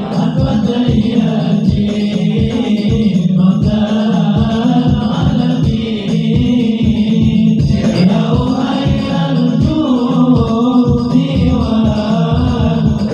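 Sholawat, an Arabic devotional hymn in praise of the Prophet, chanted by voices over a steady low beat.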